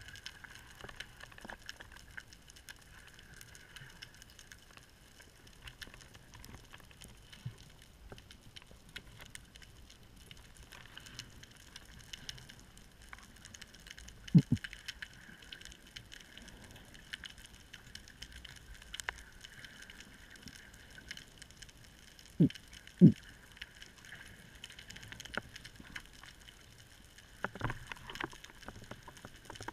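Underwater ambience picked up through a camera's housing: a faint steady hiss scattered with small clicks. A few short, low thumps come about halfway through and twice more in quick succession around two-thirds of the way in.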